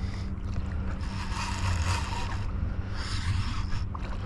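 Wind and water noise on an open-water fishing outing, a rushing hiss that swells twice, over a steady low hum.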